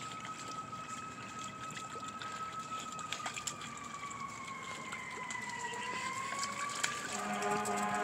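Distant emergency-vehicle siren: a steady high tone that sags a little past the middle and rises again, over scattered light clicks. A low, steady pitched hum comes in near the end.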